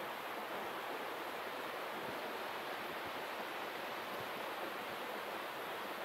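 Steady rushing of a waterfall, an even wash of falling water with no change in level.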